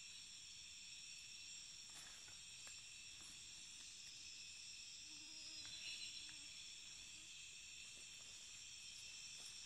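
Faint night chorus of rainforest insects, crickets and katydids trilling steadily in several high bands, with a few faint ticks and rustles.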